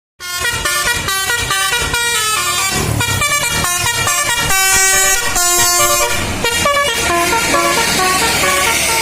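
A bus's multi-tone 'telolet' air horn (basuri horn) playing a quick tune of changing notes, starting suddenly and sounding loud. A low steady rumble joins under it near the end.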